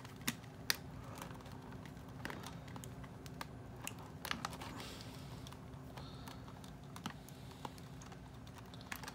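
Scattered small clicks and taps of plastic packaging being handled as the fastenings holding a doll to her box backing are worked loose, with a faint steady hum underneath.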